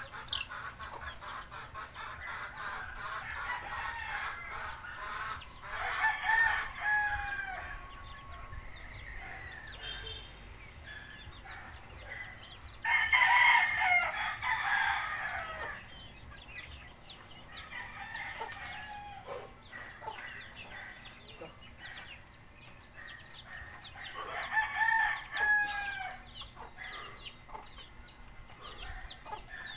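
Roosters crowing several times, each crow lasting a second or two, with short high chirps of a small bird in between.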